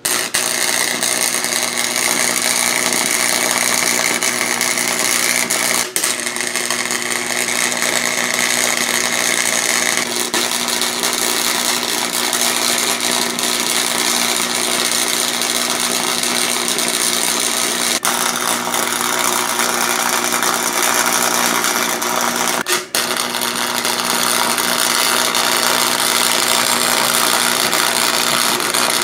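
MIG welder arc welding, a loud steady crackling hiss over a low steady hum, breaking off briefly twice before running on.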